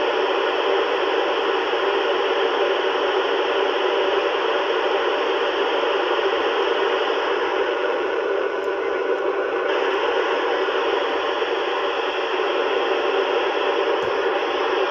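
Steady static hiss from a ham radio receiver left open on the ISS satellite downlink around 437.80 MHz, with no station coming through.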